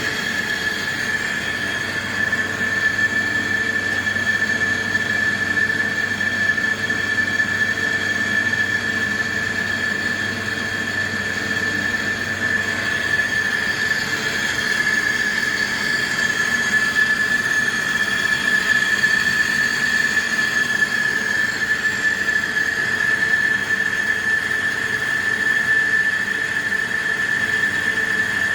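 CNC lathe turning a large bronze bushing, the cutting tool giving a steady high-pitched squeal at one unchanging pitch over the machine's low hum.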